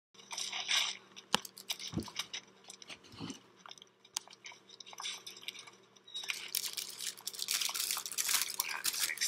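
Paper sandwich wrapper rustling and crinkling as a wrapped pita is handled, with a few soft knocks on a wooden cutting board. The crinkling becomes dense and continuous over the last three seconds as the wrapper is picked up and worked open.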